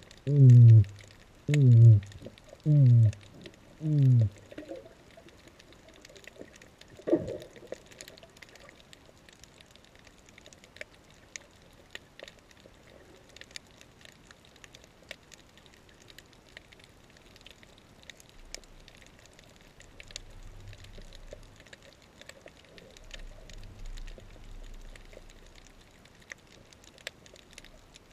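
Humpback whale song heard underwater: a run of about five descending calls, roughly one a second, in the first few seconds, then a single falling sweep a few seconds later. Faint scattered reef clicks go on throughout.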